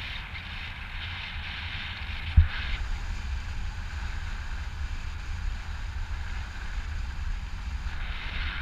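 Airflow buffeting the camera microphone during a paraglider flight: a steady low rumble with a rushing hiss that fades about three seconds in and comes back near the end. There is one short thump about two and a half seconds in.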